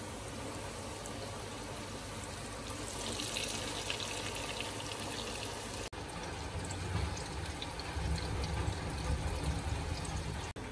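Flour-coated eggplant deep-frying in hot oil in a steel saucepan: a steady sizzle that grows louder and hissier from about three to five seconds in. After a break near six seconds the frying goes on as it is stirred with chopsticks, under a low rumble.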